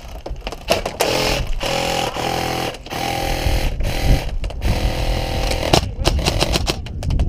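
Airsoft gun firing full-auto at a very high rate, heard as an even buzz: two long bursts, the first about a second in and lasting about two seconds, the second right after it and lasting nearly three seconds.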